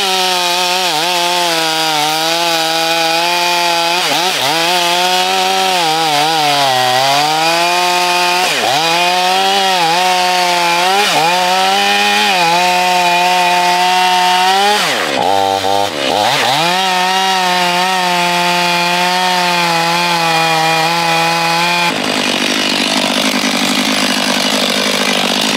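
Stihl chainsaw running at full throttle while cutting through a thick log. Its pitch repeatedly sags under load and picks back up, with one deep bog-down about two thirds of the way in. Near the end the sound changes to a rougher, noisier running.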